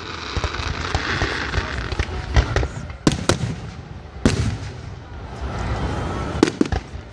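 Aerial fireworks bursting: a run of sharp bangs at uneven intervals, some in quick pairs, over a continuous crackle.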